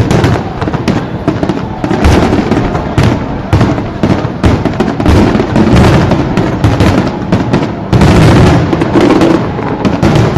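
Fireworks display going off in a rapid, near-continuous barrage, many bangs and crackles overlapping with hardly a pause.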